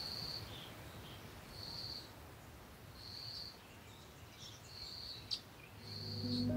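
Faint outdoor ambience: a short, high, even-pitched chirp repeats five times about every one and a half seconds, with a single sharp click about five seconds in.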